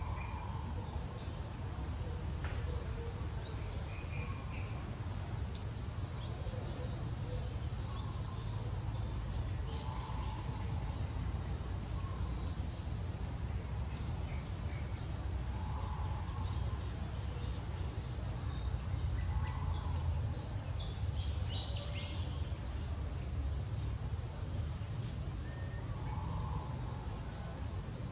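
Steady high-pitched drone of insects, such as crickets or cicadas, that pulses at the start and again near the end, over a steady low outdoor rumble.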